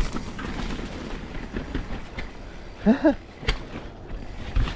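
Mountain bike rolling down a rough, wet dirt trail: tyres running over dirt and roots, the bike rattling, with irregular knocks as it hits bumps and one sharper knock about three and a half seconds in. A short vocal sound from the rider about three seconds in.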